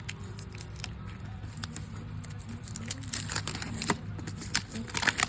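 Scattered light clicks and rattles of hard plastic pet-door tunnel kit pieces being handled, over a low steady hum.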